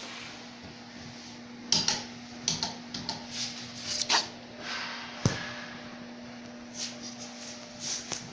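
Scattered knocks and clicks of movement in a small tiled room, the sharpest a single tap about five seconds in, over a steady low hum.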